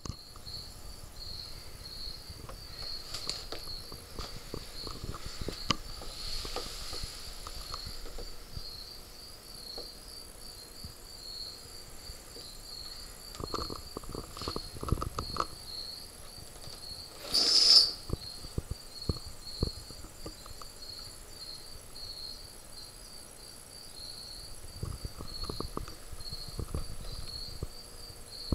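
Crickets chirping steadily in a fast, even pulse throughout, with scattered low knocks and a brief loud noise about 17 seconds in.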